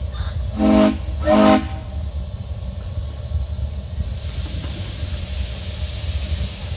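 Steam locomotive whistle on a miniature steam railroad sounding two short toots in quick succession, over a steady low rumble. A steady hiss builds in the second half.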